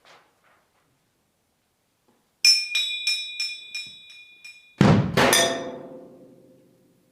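Percussion on struck metal. A quick run of about a dozen ringing metal strikes, each leaving the same high bell-like tones. About two-thirds of the way in comes one loud hit with a deep drum thud and a bright metallic crash, which rings and fades away over about two seconds.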